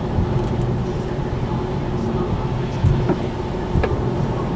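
Car driving, with steady engine and road rumble heard inside the cabin. A few sharp clicks about three and four seconds in, from sticks and twigs hitting the underside of the car.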